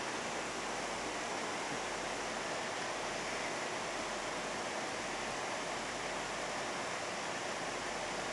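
Steady rushing of air from a fan, even and unchanging, with a faint low hum.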